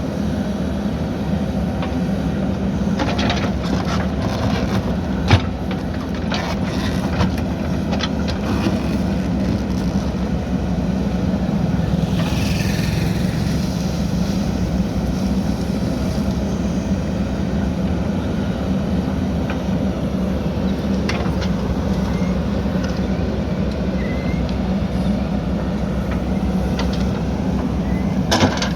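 JCB backhoe loader's diesel engine running steadily under working load, with scattered metallic knocks and clanks from the digging. There is one sharp knock about five seconds in and a brief scraping hiss around the middle.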